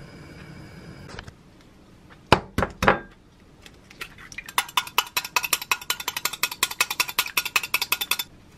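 An egg knocked three times against the rim of a glass measuring cup and cracked open, then the eggs beaten with a utensil in the glass cup, clinking quickly against its side about eight times a second for several seconds.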